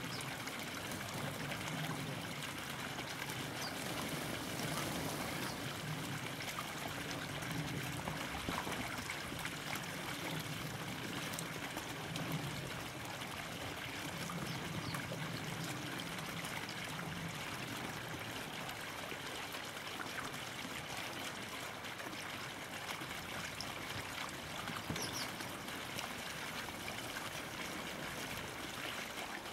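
Steady rushing background noise like running water, with a few faint short ticks.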